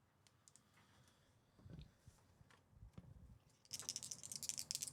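Faint handling sounds at a desk: a couple of soft knocks, then a quick run of sharp clicks and rattles near the end.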